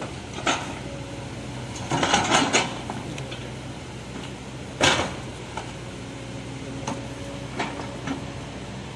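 Tracked excavator's diesel engine and hydraulics running steadily while its bucket pushes a large boulder over a rocky road, with sharp clanks and knocks of metal and rock. The loudest knock comes about five seconds in.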